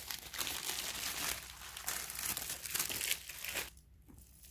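Tissue paper rustling and crinkling as a handbag is unwrapped from its box, stopping suddenly about three-quarters of the way through.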